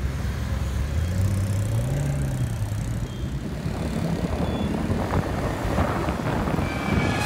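Pagani Huayra's twin-turbo V12 pulling away and accelerating, its low engine note rising over the first couple of seconds and then easing, with traffic and road noise building after.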